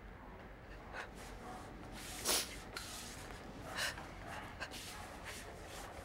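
A woman sniffling and breathing sharply: a few short sniffs over faint room tone, the loudest about two seconds in.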